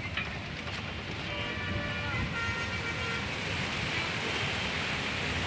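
Steady rush of heavy rain and traffic through floodwater, with a vehicle horn sounding for about a second starting a little over a second in. The rain noise grows toward the end.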